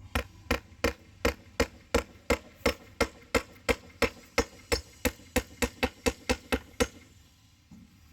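Hammer driving nails into scrap wood: about twenty sharp strikes at roughly three a second, quickening slightly near the end and stopping about seven seconds in.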